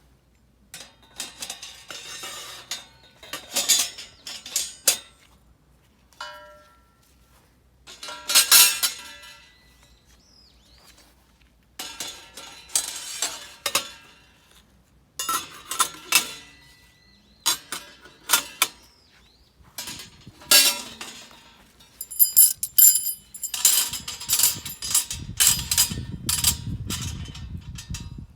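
Steel grill parts clinking and clanking in irregular bursts as they are fitted together, each knock ringing briefly. Near the end comes a denser run of clinks with a low scraping rumble under it.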